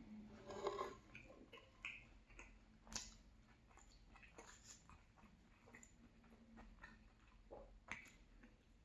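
Faint chewing and mouth sounds of a person eating salmon pie, with a few sharp little clicks.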